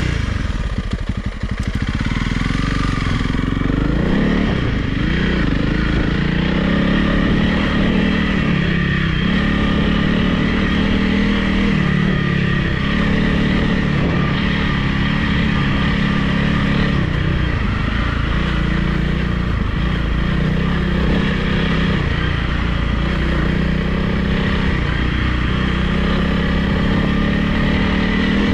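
Honda CRF300 Rally's single-cylinder four-stroke engine running as the bike rides along, its pitch rising and falling with the throttle.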